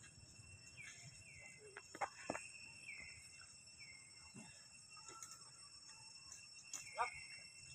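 Faint steady high-pitched drone of insects, with a few short falling chirps scattered through it and some sharp clicks.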